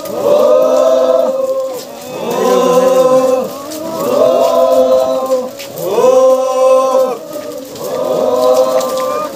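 A procession of Apatani festival marchers chanting together in unison. A short call rises and falls and is repeated about five times, one every couple of seconds.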